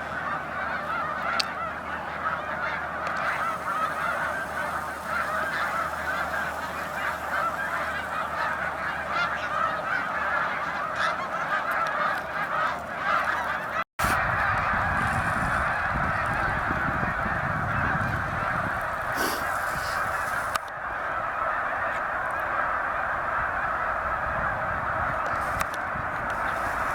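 A huge flock of snow geese calling together: a dense, unbroken chorus of high honking. The chorus drops out briefly about halfway through, and a low rumble sits under it after that.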